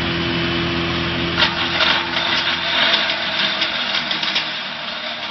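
Wood crusher for making sawdust, running with a steady hum. About a second and a half in, wood pieces poured in from a sack start clattering and cracking in the crushing chamber as they are broken into sawdust, and this goes on irregularly.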